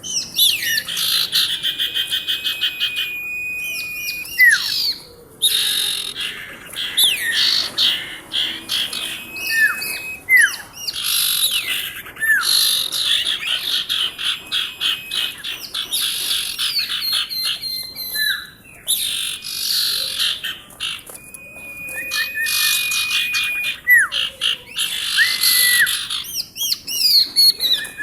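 Female common iora (sirtu) singing without a break: rapid chattering trills mixed with held high whistles and short falling notes, with brief pauses twice.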